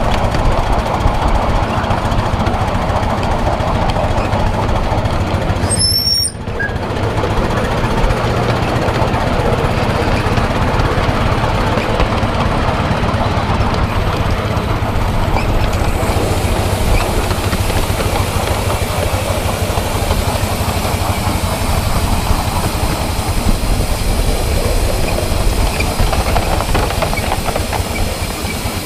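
7¼-inch gauge miniature steam locomotive running along the track, a steady rapid clatter of its working and wheels on the rails, with some hiss of steam. The sound drops briefly about six seconds in.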